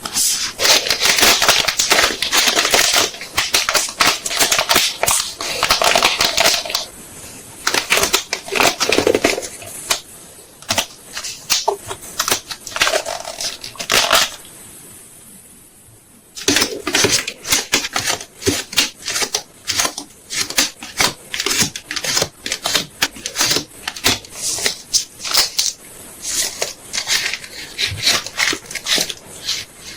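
Photocards and plastic packing materials being handled: a dense run of crinkling and quick clicks and taps, with a lull of about two seconds around the middle.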